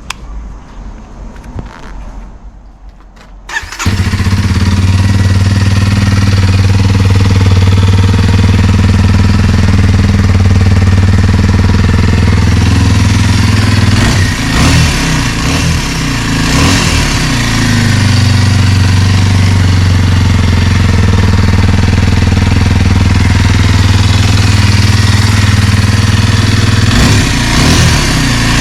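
Kawasaki KLX230 single-cylinder motorcycle engine starting about four seconds in, then idling steadily and loud. It takes a few quick throttle blips about halfway through and again near the end.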